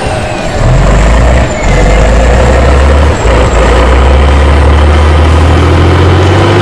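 Diesel engine of a Tatra truck-trial truck running hard under load as it climbs over a dirt mound, its pitch rising near the end.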